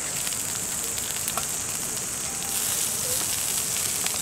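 Thick-cut pork belly sizzling steadily on a thick iron griddle over a wood fire, with a few light clicks of metal tongs as the cooked pieces are lifted off.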